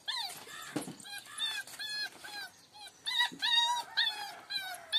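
A dog yelping: a rapid series of short, high-pitched yips, several a second, fainter at first and louder from about three seconds in.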